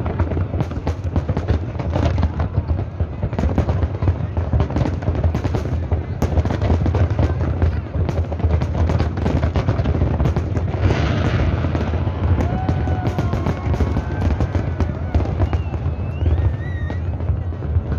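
Large aerial fireworks display: a dense barrage of shells bursting in rapid succession, a constant crackle of bangs over a deep rumble. In the latter part, a few gliding whistles rise and fall over the bangs.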